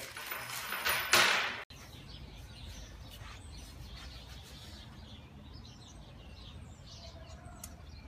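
Clear plastic bag crinkling as small plastic mount parts are taken out of it, stopping abruptly after about a second and a half. Then quiet outdoor background with faint bird chirps.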